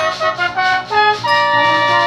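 Multitracked brass, two trumpets and a tenor horn, playing a tune: a run of quick, short notes for about the first second, then a held chord.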